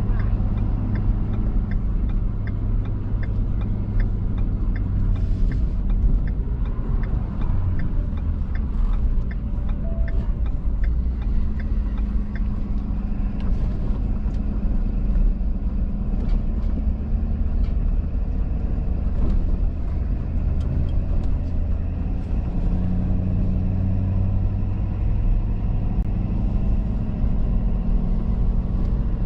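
Truck running down the road: a steady low engine and road rumble whose pitch shifts a few times, with a run of light ticks near the start.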